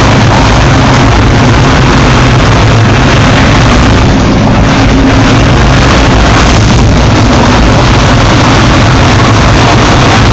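1998 Challenger hopper-fed grinder running loud and steady, its engine's low tones under a dense mechanical roar.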